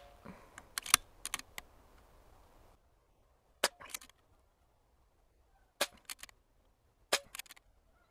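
A few light clicks in the first second and a half, then three sharp, fairly quiet shots from a moderated Diana Stormrider PCP air rifle, about one and a half to two seconds apart. Each shot is followed within a fraction of a second by a couple of quieter clicks, typical of pellets striking and tipping over steel knockdown targets.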